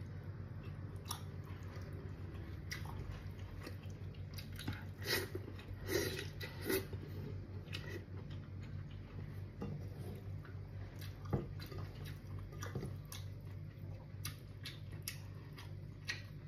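Close-up mouth sounds of a person eating squid adobo and greens with rice by hand: chewing, with scattered soft wet clicks and smacks. A steady low hum runs underneath.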